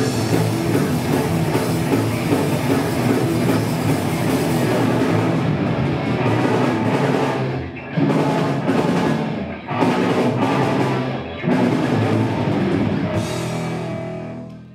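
Live rock band of electric guitars and drum kit playing loud, the band cutting out briefly about eight, ten and eleven and a half seconds in before coming back, then dying away at the very end.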